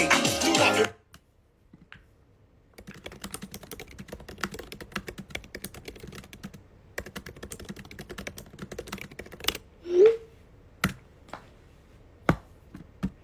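Music cuts off about a second in; then fingertips tap rapidly on a phone's touchscreen, like typing, with a few louder clicks near the end and one brief rising pitched sound about ten seconds in.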